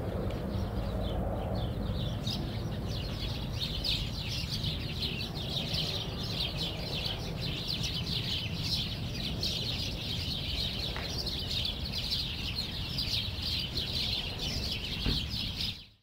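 A flock of small birds chirping and chattering, with many quick high chirps overlapping in a dense, continuous chorus over a low steady rumble. The chorus builds up about a second and a half in and fades out at the very end.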